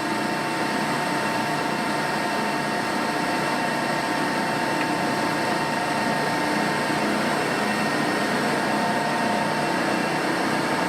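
LeBlond sliding gap bed lathe running under power, a steady mechanical hum and gear whine with several constant tones, including a clear one near 1 kHz, and no change in speed.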